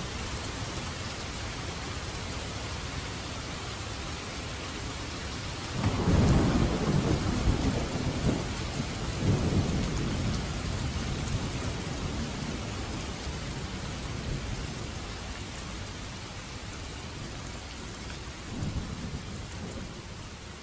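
Steady rain falling, from a rain ambience recording, with a roll of thunder about six seconds in that rumbles on for several seconds and slowly fades, and a second, fainter rumble of thunder near the end.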